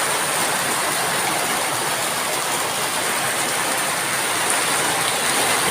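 Rain falling steadily, an even hiss of water with a thin high tone held beneath it.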